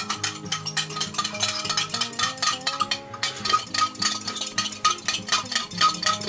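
Background music with a quick, even percussive beat and held notes that change in steps.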